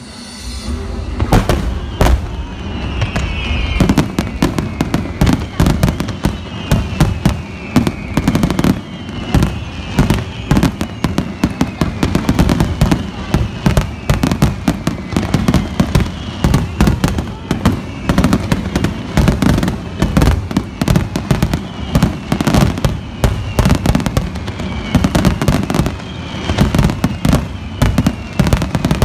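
A dense, continuous barrage of fireworks bursts: rapid booms and crackles in quick succession, starting about a second in.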